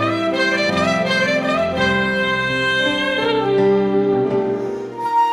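Saxophone playing a melody over a backing track, with quick rising runs of notes in the first second or so. The backing cuts off sharply near the end.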